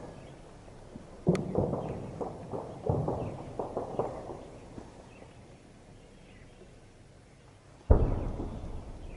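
Distant weapons fire in open terrain: three sudden blasts, about a second in, near three seconds and near eight seconds. Each is followed by a rolling echo that dies away over a second or two.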